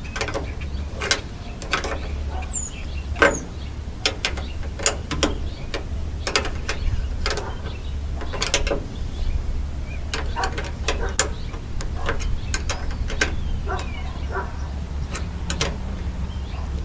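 Irregular clicks and knocks of hand tools and metal parts as a screw is fastened into a van's door latch, over a steady low hum.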